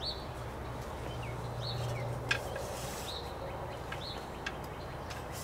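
A bird's short chirps, repeated about once a second over a steady outdoor hum, with one light knock about two seconds in.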